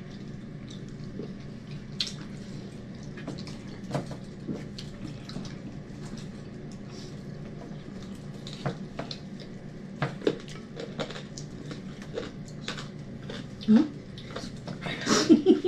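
Mukbang eating sounds: scattered light clicks and taps of fingers picking food off a shared plate, with chewing, over a steady low room hum. Two short bursts of voice come near the end.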